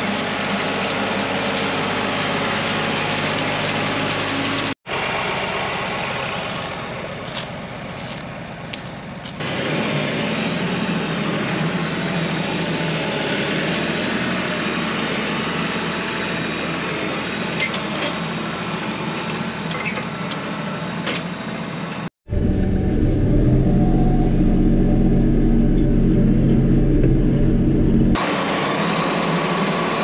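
Kioti NS6010 tractor's diesel engine running steadily as it pulls a crimper through old corn stalks, with a constant rushing noise over the engine hum. The sound breaks off and changes twice, about five seconds in and again a little past twenty seconds; after the second break the low engine drone is loudest.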